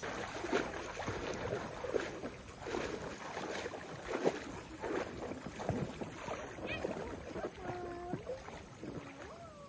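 Kayak paddle strokes splashing in shallow lake water, in an irregular series of splashes and drips.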